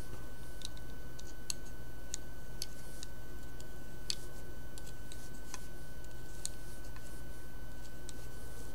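Small, sharp clicks at irregular intervals, about a dozen, as a metal loom hook taps and catches on the plastic pegs of a round knitting loom while the stitches are lifted off. A steady low hum and a faint high whine run underneath.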